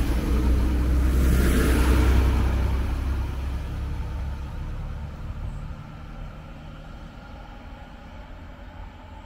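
DB class 642 Desiro diesel multiple unit pulling out, its diesel engines giving a deep rumble that is loud at first and fades steadily over the next several seconds as the train moves away.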